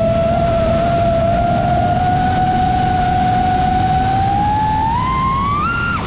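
Five-inch FPV quadcopter's brushless motors and propellers whining in one steady high tone over a rush of wind, the pitch climbing in steps over the last second as the motors spin up.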